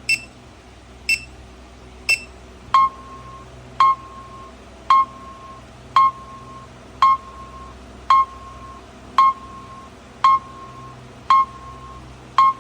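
Electronic timer board's buzzer beeping about once a second. Around three seconds in, the beep changes from a short high-pitched chirp to a lower beep with a click at its onset, and it keeps the same steady pace.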